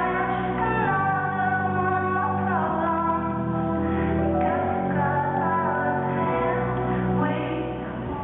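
Music with a woman singing in long gliding lines over held chords and a slowly changing bass.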